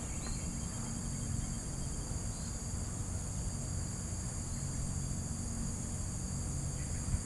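A steady, high-pitched chorus of insects droning without a break, over a low, even rumble on the microphone.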